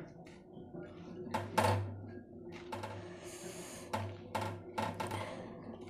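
Metal spoon stirring thick rice kheer in a metal pot as date-palm jaggery is mixed in: a handful of short knocks of the spoon against the pot, with a brief scrape a little past halfway.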